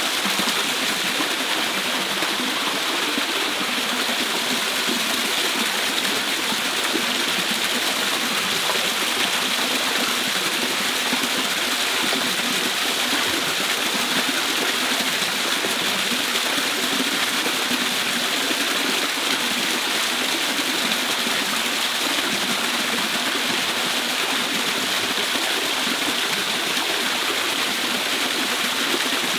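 Small waterfall pouring over rocks into a shallow pool, a steady, unbroken rush of water.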